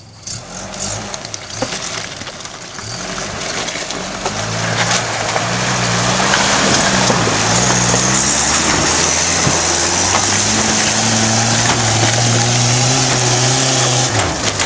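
Toyota dual-cab 4x4 pickup's engine working hard under load, revs building over the first few seconds and then held high, with tyres crunching over rocks and gravel. Near the end the engine note drops away sharply as the truck fails to make the climb up the bank.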